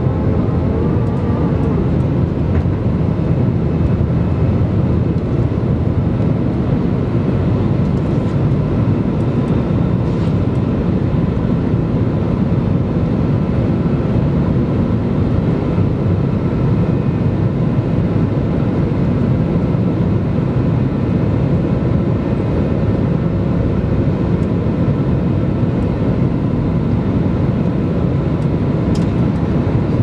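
Airbus A320's jet engines at climb power after takeoff, heard inside the cabin over the wing: a loud, steady, deep rumble with a faint even hum above it.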